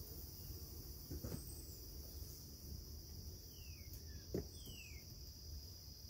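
Faint outdoor ambience: a steady high-pitched insect drone, with two short downward-sliding bird chirps a little past the middle and two light knocks, one about a second in and one past the middle.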